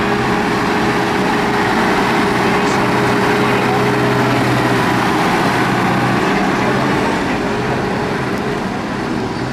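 Massey Ferguson tractor's diesel engine running steadily as the tractor drives, with a steady high whine over the engine note.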